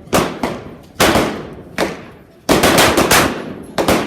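Semi-automatic .45 ACP pistol shots fired at an uneven pace, about ten in all, each ringing off with an echo. They include a quick string of four shots about two and a half seconds in.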